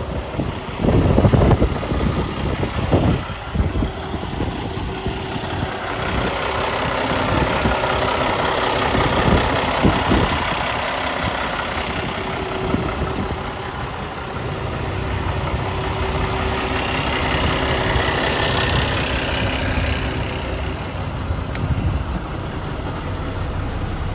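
Cummins diesel engine of a Peterbilt 386 truck idling steadily, with wind buffeting the microphone in gusts during the first few seconds.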